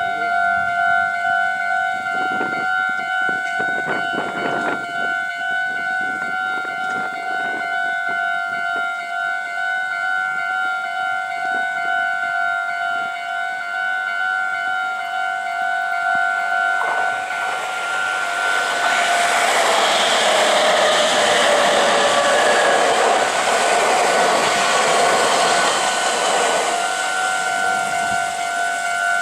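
Japanese level-crossing warning bell ringing steadily. A little past halfway through, a Meitetsu electric train passes over the crossing for about ten seconds, a loud rumble of wheels on rail that nearly drowns the bell, which is heard again once the train has gone.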